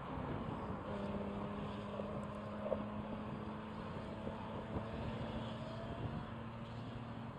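A motor vehicle engine running at a steady, unchanging pitch, with wind rumbling on the microphone.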